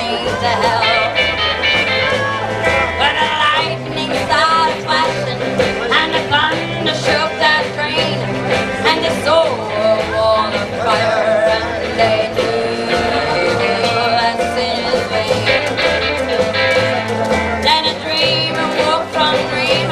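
Live rockabilly band playing a song: a woman singing over electric guitars, an upright bass stepping through low notes, and drums keeping a steady beat.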